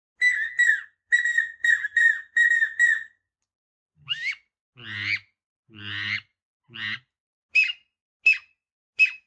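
A series of duck calls: seven short whistles, each falling slightly in pitch, then four longer, lower calls, then four short, high whistles.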